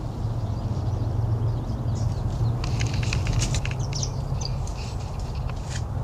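Outdoor ambience: a steady low hum, with a quick run of short, sharp high clicks or chirps starting about halfway through.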